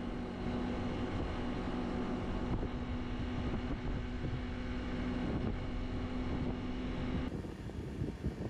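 Small Honda scooter's engine running at a steady cruising speed, with wind rushing over the microphone. About seven seconds in the sound cuts abruptly to a lower, gusty wind and road noise.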